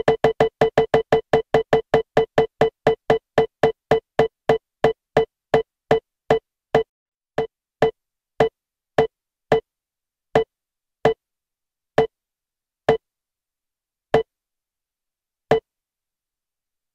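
Peacemaker iPhone app's electronic roulette-wheel tick: a short pitched blip each time the spinning name wheel passes its pointer. The ticks slow steadily from about five a second to about one every second and a half as the wheel coasts toward a stop.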